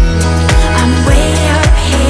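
Background music: an electronic track with a heavy kick drum about twice a second over a sustained bass line and a melody.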